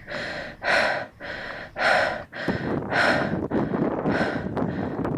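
A person breathing hard in loud, rhythmic breaths, about one a second, with wind noise on the microphone coming in about halfway through.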